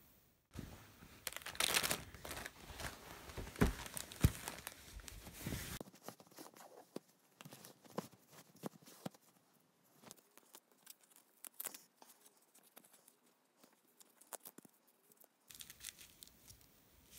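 Plastic packaging crinkling and tearing open, loudest and densest in the first six seconds, then sparse rustles and clicks as the items are handled, with a short burst of crinkling near the end.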